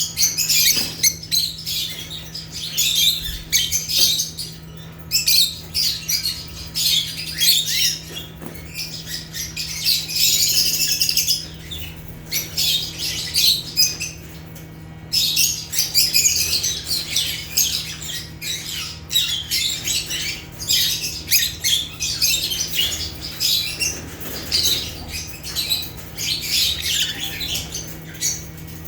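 African lovebirds (Agapornis) chirping together in dense, rapid, high-pitched chatter that eases off for a few seconds about halfway through, over a faint steady low hum.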